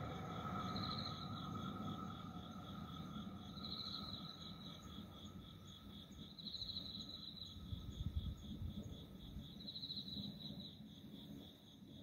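Crickets chirping: a steady, rapid high pulsing, with a second high trill of about a second coming in every three seconds or so.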